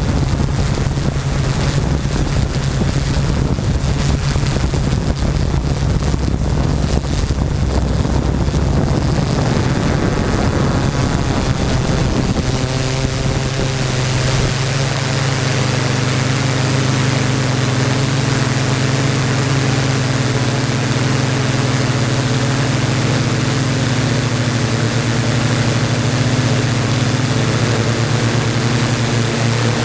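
Yuneec Typhoon G hexacopter's electric motors and propellers humming steadily in flight, heard through the GoPro riding on it. Wind noise on the microphone roughens the sound for the first dozen seconds or so, and after that the hum is steady and clean.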